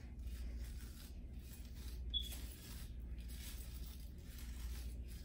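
Hairbrush swept up through hair in repeated strokes, a soft scratchy rustle that comes and goes every half second or so.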